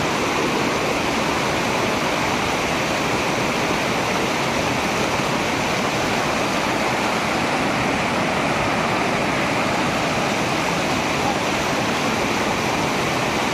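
Shallow rocky river rushing steadily over stones and small rapids.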